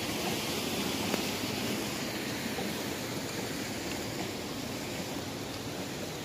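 A steady rushing noise with no distinct events.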